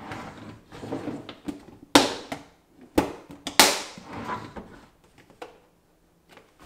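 IKEA KRITISK plastic storage boxes being slid along a shelf and set back in place: scraping and rustling, with sharp plastic knocks about two, three and three and a half seconds in, the last the loudest.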